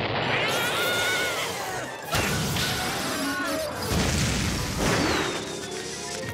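Cartoon sound effects over background music: electrical zapping and crackling, a warbling tone early on, and several crashes and booms about 2, 4 and 5 seconds in.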